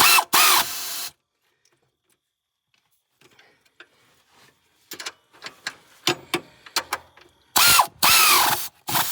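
Air tool driving bolts in, in short whirring bursts whose pitch swoops as the trigger is pulled: two bursts around the start and several more near the end. Quieter clicks and tool handling come between.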